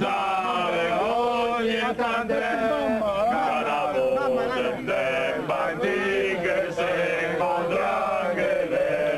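A group of men singing a folk song together in chorus, without a break.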